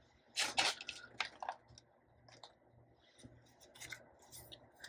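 Tarot cards being handled on a table: a few short, soft rustles and taps of card stock, with quiet gaps between them.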